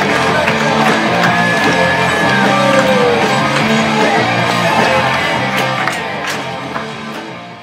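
Rock music playing, fading out near the end.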